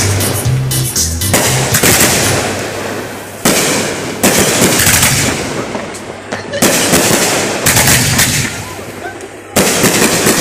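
Aerial fireworks going off in rapid volleys, each a dense crackle of bangs that dies away, with fresh volleys starting about three and a half, four, six and a half and nine and a half seconds in.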